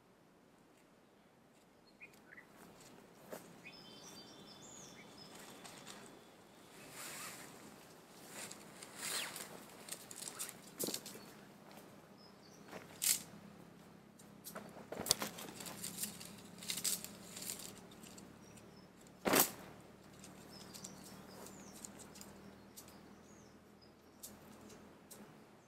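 Irregular rustling and clicking, as of something being handled, with a few sharp knocks, the loudest near the middle and a little after. A few faint bird chirps come early and again near the end, and a faint low hum runs through the second half.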